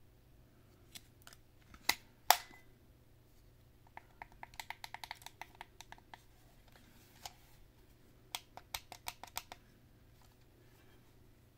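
Handling clicks and knocks on a plastic alarm clock and its packaging: two sharp knocks about two seconds in, then two runs of quick clicks, about eight to ten a second, one in the middle and one past the two-thirds mark.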